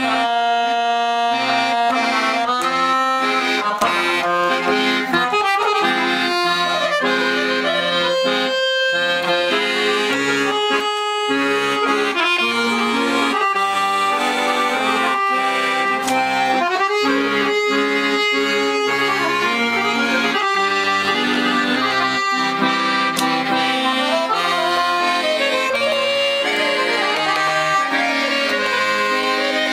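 Weltmeister piano accordion, freshly tuned and serviced, playing a continuous tune: a melody on the keyboard over bass-button accompaniment.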